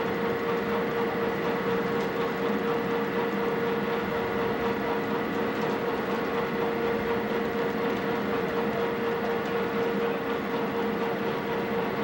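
Steady machinery hum aboard a cargo ship, with a constant high tone over a low drone and no change in level.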